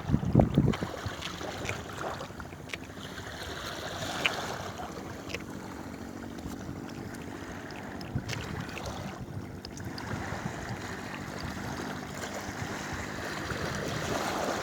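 Seawater washing and lapping along a rocky shore as a steady rush, with a few low thumps on the microphone in the first second and scattered faint clicks.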